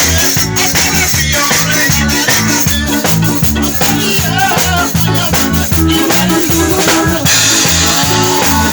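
Live band music with a drum kit keeping a steady beat under a repeating low bass line.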